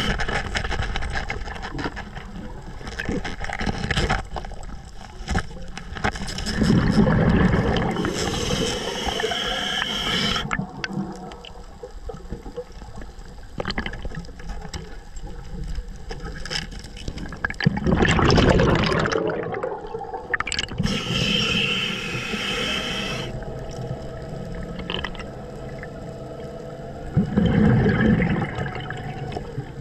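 Scuba diver breathing through a regulator underwater, in slow breaths. Hissing inhales through the regulator alternate with louder bursts of bubbling exhaled air, about three of each.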